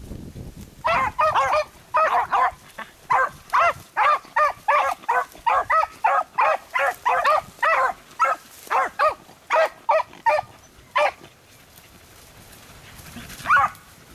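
Beagles baying while trailing a rabbit: a rapid string of short bays, about three a second, that stops about eleven seconds in, with one more bay near the end.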